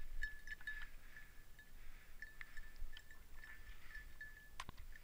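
A bird dog's collar bell ringing on and off with small clinks as the dog moves, and a sharp knock near the end.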